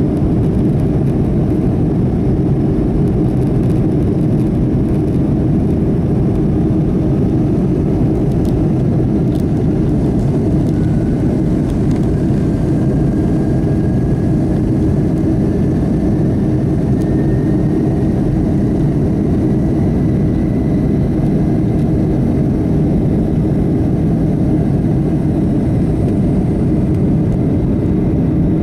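Boeing 757-223 jet engines heard from inside the passenger cabin: a loud, steady rush. A faint whine rises slowly in pitch through the second half.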